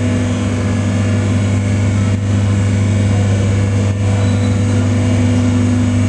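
Werkit vertical waste baler's electric hydraulic pump motor running with a steady hum, raising the press plate to the top of its travel.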